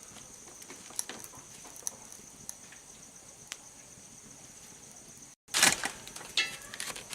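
A few faint, isolated electrical crackles from a faulty LED flame-effect light bulb, over a steady high insect trill of crickets. Near the end, after a brief dropout, a loud clatter and a quick run of ticks.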